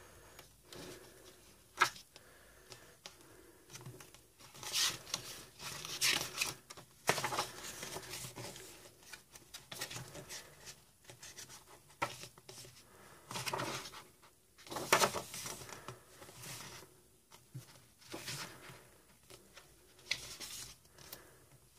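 Glossy pages of a photobook being turned by hand: irregular paper swishes and rustles every second or two, with a sharp tap about two seconds in.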